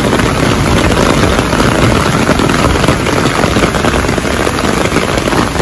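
Loud, steady rush of heavy rain and a muddy river running in flood: an even noise with a low rumble underneath.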